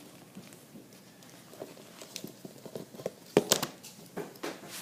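Scattered soft taps and knocks, like objects being handled, with the loudest cluster about three and a half seconds in and a few more shortly after.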